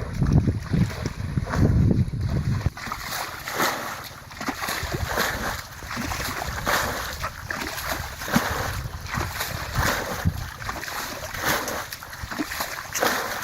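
Wind buffeting the microphone for the first few seconds, cutting off suddenly, then irregular splashing and sloshing of water.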